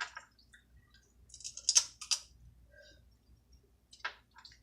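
Snow crab shells being cracked and the meat pulled and sucked out, close to the microphone: a few short, crisp cracks and slurps, the loudest cluster about two seconds in.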